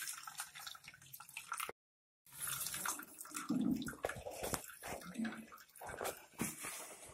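Whey trickling and dripping through a steel mesh strainer into a pot as curdled milk (paneer curds) in a cotton cloth is squeezed by hand to drain it. The sound drops out completely for a moment about two seconds in.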